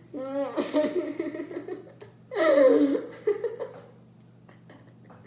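Children laughing and giggling in bursts, which die away in the last couple of seconds.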